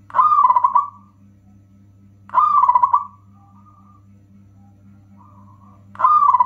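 Zebra dove (perkutut) cooing: three short, loud bursts of rapid stuttering coos about two to three seconds apart, the third near the end, with fainter coos between them. A steady low hum runs underneath.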